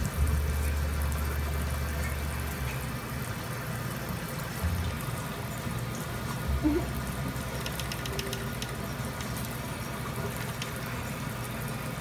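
Water running from a kitchen faucet into a sink. Near the start a parrot flaps its wings under the spray, briefly louder.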